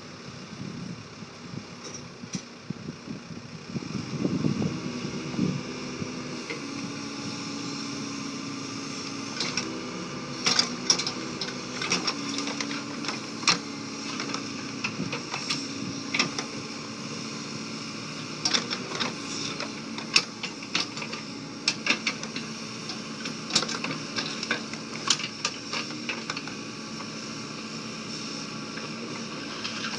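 Backhoe loader's diesel engine running under hydraulic load while the rear bucket digs a trench. It speeds up about four seconds in and its pitch wavers as the arm works, with frequent sharp clanks and scrapes of the bucket against dirt and stones.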